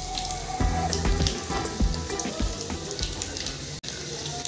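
Fryums sizzling and crackling as they puff up in very hot mustard oil in a steel kadai, with a few dull low knocks as a slotted spoon works them around in the pan.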